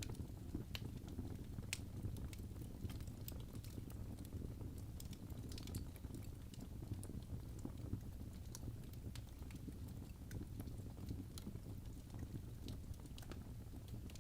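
Wood fire burning in a fireplace: irregular sharp crackles and small pops over a low, steady rumble of flame.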